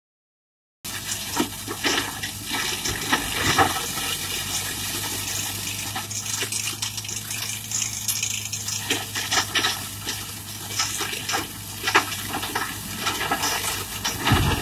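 Tractor-driven Zanon TMR heavy reversible flail mulcher shredding brush and saplings, starting about a second in. A steady engine hum runs under a continuous rushing noise, broken by irregular sharp cracks and snaps as wood is chopped.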